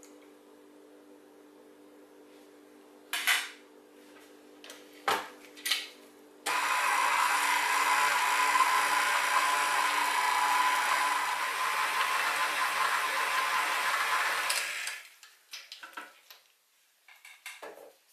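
A KitchenAid Artisan stand mixer switches on suddenly about six seconds in and runs steadily for about eight seconds with a steady whine, its flat beater working fish paste in the steel bowl, then runs down. A few light knocks come before it and small clatters after.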